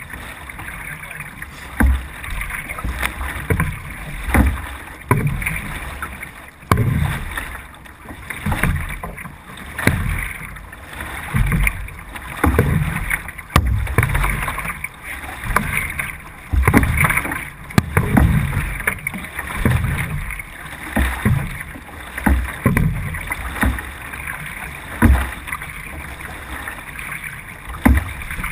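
C1 sprint canoe underway, heard from a camera on the boat: water rushing along the hull, with a rhythmic thump and splash of paddle strokes about once a second.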